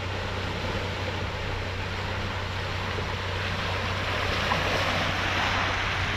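Four-wheel drive's engine running steadily as it pushes through a muddy water hole, with muddy water rushing and splashing around the vehicle, growing louder about halfway through.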